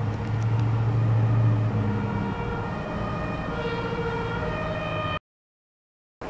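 Dodge Ram pickup's engine pulling away and passing, loudest about a second and a half in, over street traffic. From about two seconds in, a two-tone emergency-vehicle siren alternates between two pitches. The sound cuts off abruptly about five seconds in.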